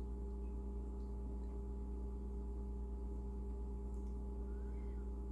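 Steady low electrical hum over faint room tone.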